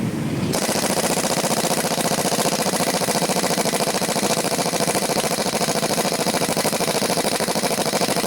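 Power screwdriver running steadily with a fast, even rattle, starting about half a second in.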